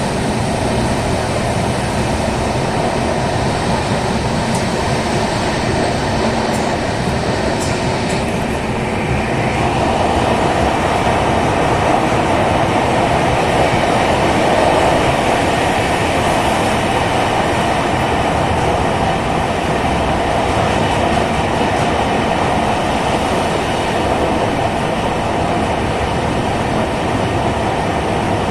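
Passenger train running at speed: a steady rumble of wheels on rails with some clickety-clack. About nine seconds in, the high hiss falls away and a louder midrange roar takes over for the rest of the stretch.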